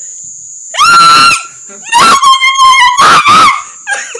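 A person shrieking in fright: three loud, high-pitched screams about a second apart.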